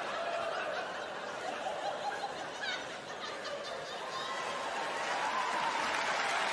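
Audience laughing, swelling louder over the last couple of seconds.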